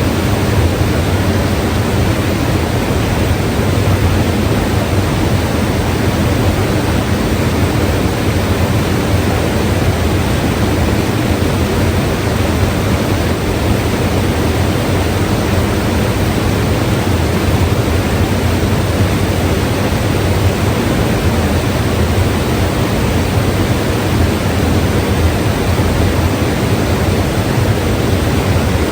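A mountain river rushing steadily, a dense, unbroken roar of water.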